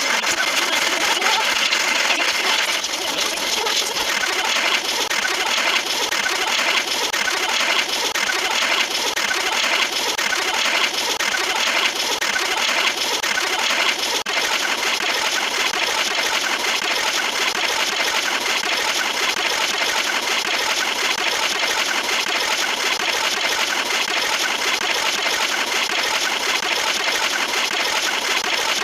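A dense, harsh din of many sound effects playing on top of one another, with a regular pulse about once a second in the first half, then settling into a steady wall of noise.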